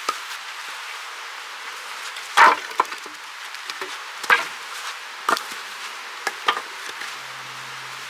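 Axe striking and splitting seasoned firewood logs, over a steady hiss. The loudest sharp knock comes about two and a half seconds in. Further blows follow about a second apart, with a couple of lighter knocks near the end.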